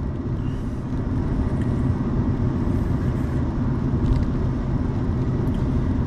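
Steady road and engine rumble of a car being driven, heard from inside the cabin.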